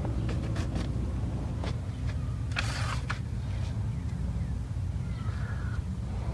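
Steady low mechanical rumble in the background, with a few light clicks and a short rustling burst about three seconds in.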